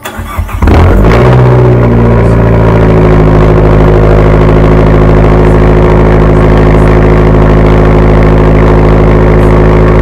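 2012 Fiat 500 Abarth's turbocharged 1.4-litre four-cylinder cold-starting through its stock exhaust. A brief crank, then it catches under a second in with a short flare and settles into a loud, steady cold idle.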